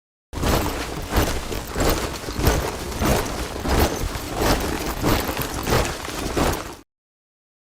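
A column of soldiers marching in step, boots striking the ground together about twice a second. It starts just after the beginning and cuts off abruptly about a second before the end.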